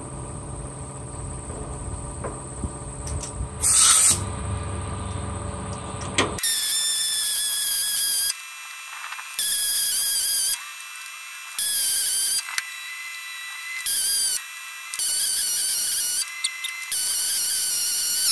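Pneumatic air hammer pounding a seized, mushroomed pivot pin out of the top link rocker arm bracket of a 1957 Ford 660 tractor. It fires in repeated bursts of one to two seconds with short pauses as the stubborn pin finally starts to move. The first six seconds hold a lower steady hum with one short burst of hammering about four seconds in.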